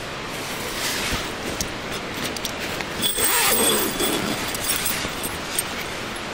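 Steady rushing of a mountain creek, with a burst of rustling, handling noise about three seconds in that lasts a second or so.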